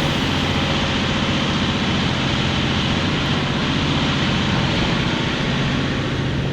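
Cat 349F excavator's six-cylinder diesel engine running steadily at working speed.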